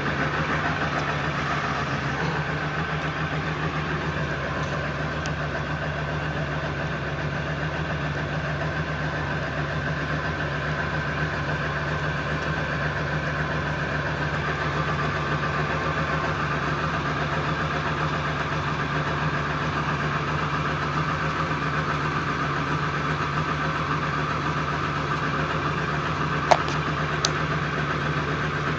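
1999 Ford F-350's 7.3-litre Power Stroke V8 turbo-diesel idling steadily, the rough, shaking idle the owner gets after starting it cold. Two short clicks near the end.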